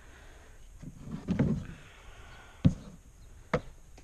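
A dull rumbling thump about a second in, then two sharp knocks a little under a second apart, the first the loudest.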